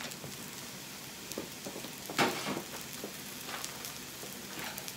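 Carrot galette frying in oil in a cast-iron skillet: a steady sizzle, with a few light knocks, the loudest about two seconds in.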